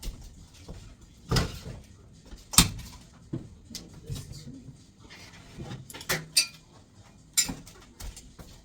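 Things being handled and moved about: a series of irregular knocks and thumps, a few of them sharp.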